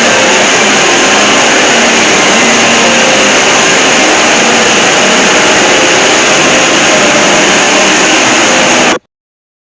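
Emergency alert system alarm boosted and distorted into a harsh, very loud, steady noise, with the alarm tones barely standing out. It cuts off abruptly about nine seconds in.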